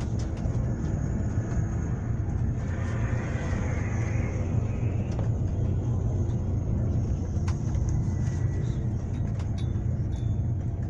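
Steady low rumble of a vehicle ride heard from inside, with scattered small clicks and rattles.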